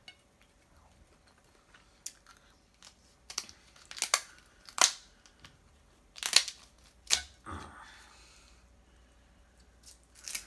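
Kitchen shears cutting through snow crab leg shells, giving a series of sharp, irregular cracks and snaps with some crunching. The loudest snaps fall a few seconds in and again near the end.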